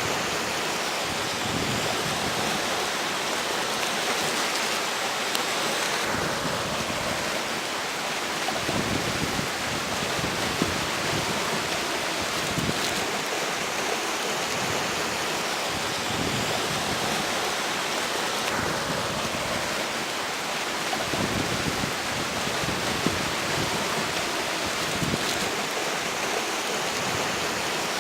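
River water rushing steadily, with strong wind blowing.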